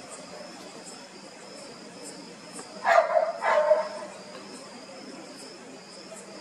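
A dog barking twice, about half a second apart, a few seconds in.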